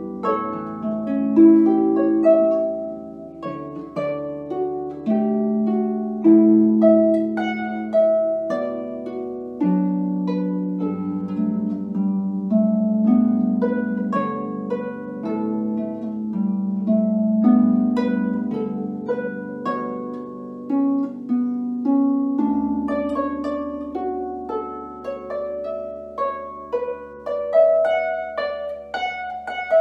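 Large concert harp played solo: plucked melody notes and chords ringing on over low bass notes.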